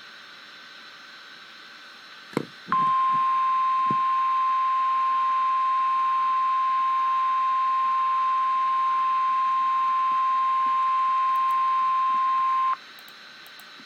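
NOAA Weather Radio's 1050 Hz warning alarm tone: one steady, unbroken beep-tone lasting about ten seconds. It signals that an emergency warning is about to be read. A click and a background radio hiss come just before it.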